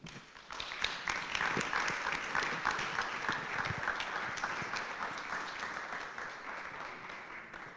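Audience applauding, starting just after the letter ends, holding steady, then tapering off near the end.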